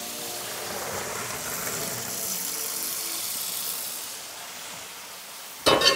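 Boiled penne and its cooking water poured from a stainless pot into a metal colander under a running cold-water tap: a steady splashing rush that eases after about four seconds, then a short clatter near the end.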